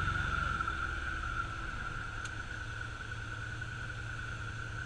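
Steady rushing of a small woodland waterfall: an even hiss with a constant high note running through it.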